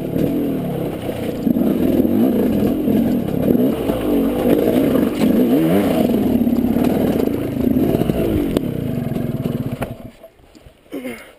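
KTM 200 two-stroke dirt bike engine revving up and down in short blips over rough trail, with clatter and scraping from the bike. About ten seconds in, the engine cuts out abruptly as the bike goes over, leaving a short squeak and a click.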